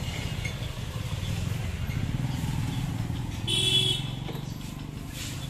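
A motorcycle engine running as it rides past, a steady low rumble, with a short high-pitched tone about three and a half seconds in that is the loudest moment.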